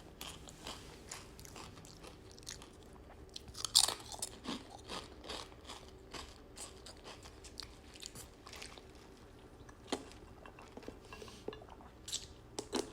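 Close-up chewing of a large mouthful of sandwich, with moist crunching and crackling throughout. The loudest crunch comes about four seconds in.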